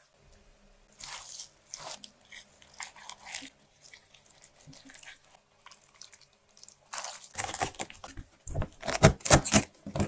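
Wet squelching and crunching of napa cabbage kimchi being mixed and handled, with red chili paste, shredded radish and scallions, in scattered soft crackles. In the last three seconds it becomes a louder run of sharp crackles and low knocks as the cabbage is packed into a plastic container.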